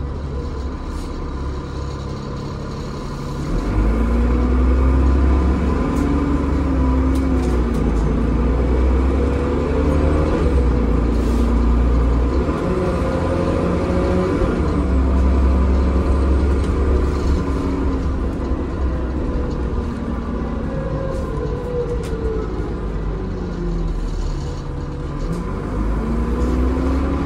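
Transbus Trident double-decker bus's diesel engine and automatic gearbox, heard from inside on the upper deck, as the bus pulls away and accelerates. About three and a half seconds in the engine gets louder. Its note then rises and drops back several times as the gearbox changes up, over a steady low rumble.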